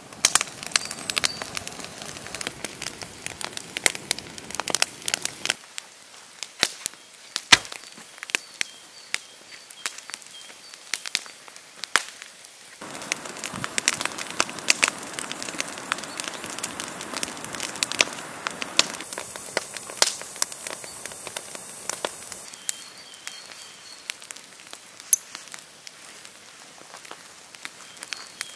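Open wood fire of branches crackling, with many sharp pops and snaps at irregular intervals. A rushing hiss underneath grows louder for about ten seconds in the middle.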